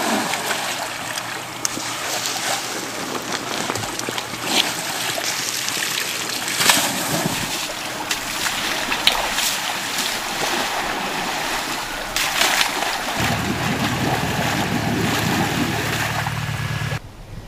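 Muddy water splashing and sloshing as an Asian elephant wallows and wades in a shallow pool and stream, with sharp splashes now and then. A low steady hum comes in about thirteen seconds in.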